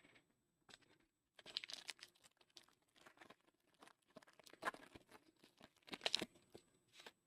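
Trading cards being handled and slid against one another: faint scattered rustles and light ticks, with two louder brushes about four and a half and six seconds in.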